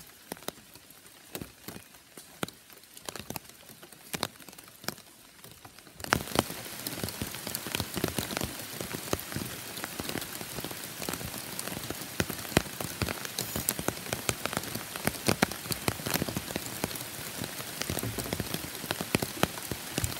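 Steady rain, heard as a haze of many fine drop ticks. About six seconds in it jumps suddenly louder and denser, with close drops pattering on an umbrella and a wet tabletop right beside the microphone.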